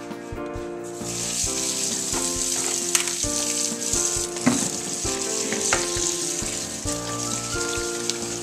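Kitchen tap turned on about a second in, water running steadily into a plastic bowl and over a mesh strainer of black sesame seeds being rinsed by hand, with a few knocks of the strainer. Music plays underneath.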